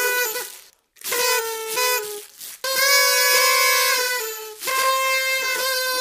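Party trumpets (party horns) blown together in long held toots, a buzzy steady note with a second horn sounding slightly lower. They break off briefly about a second in and again a little before the middle, then sound on.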